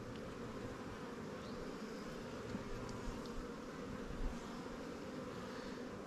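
Honeybees buzzing around an open hive, a steady hum.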